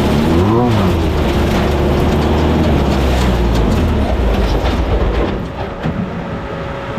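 Class 1600 off-road race car's Volkswagen air-cooled engine running with the chassis rattling, the revs rising and falling briefly about half a second in. About five seconds in the engine sound drops away, leaving scattered knocks and clatter.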